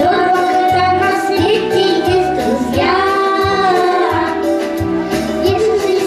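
A child singing into a microphone over an instrumental backing with a regular bass beat; the sung line holds one long note a little past the middle.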